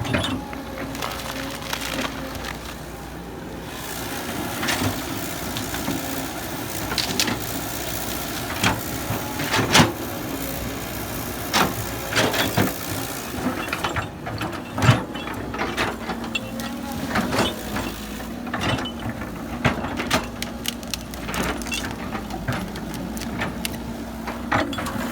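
Heavy earthmoving machinery, an excavator working, its diesel engine running steadily under irregular sharp knocks and crunches of earth and rock.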